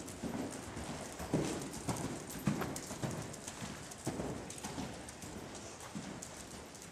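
Hoofbeats of an Appendix Quarter Horse cantering under saddle on the dirt footing of an indoor arena, a rhythmic run of thuds with uneven spacing between strikes.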